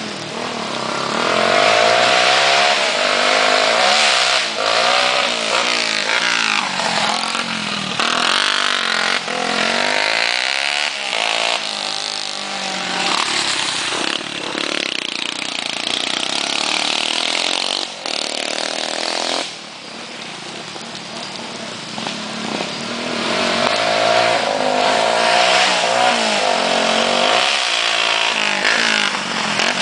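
Small two-stroke engine running loud, its pitch rising and falling again and again as it is revved up and eased off under load, with a short dip about two-thirds of the way through.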